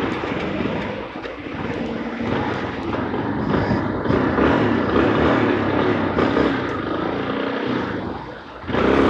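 Yamaha Ténéré 250's single-cylinder engine running at low speed while riding in slow city traffic, with wind rushing over the microphone. The sound dips briefly near the end, then picks up again.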